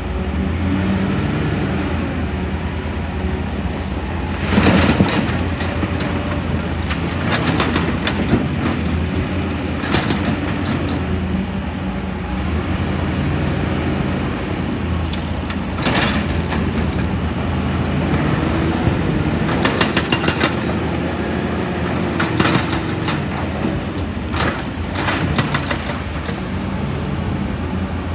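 Excavator's diesel engine running under load, its pitch rising and falling as it works, with irregular sharp clanks and crunches of rock, several of them in quick clusters.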